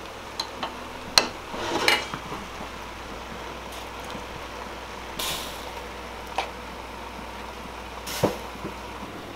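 Scattered clinks and knocks of metal tongs against a stainless steel pot, a canning funnel and glass jars as cooked red onions are transferred into canning jars, over a steady low hum that cuts off just before the end.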